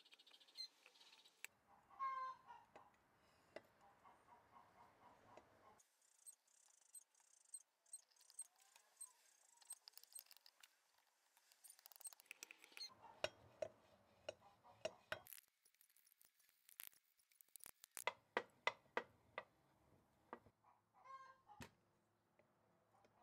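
Faint scattered metal clicks and ticks from the parts of a 1938 Craftsman 24-inch scroll saw's crank case being handled and turned by hand, thickest in a run of quick clicks in the middle.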